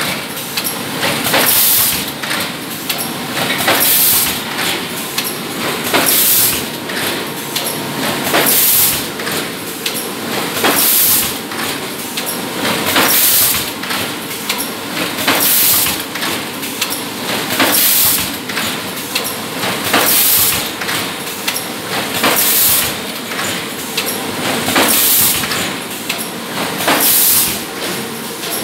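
Bottle blow moulding machine running in production: steady mechanical clatter from the preform chain conveyor and oven, with a loud hiss of compressed air about every two and a quarter seconds, once per moulding cycle.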